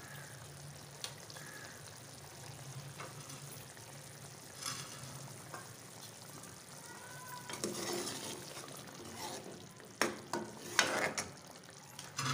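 Meat curry (bhuna gosht) sizzling in a metal pot, its oil risen to the top, while a steel ladle stirs it. The ladle scrapes and knocks against the pot now and then, most sharply about ten and eleven seconds in, over a steady low hum.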